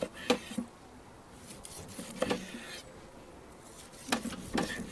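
Large chef's knife slicing through the charred crust of a grilled ribeye steak on a wooden cutting board: soft scraping strokes with a few short knocks as the blade comes down on the board.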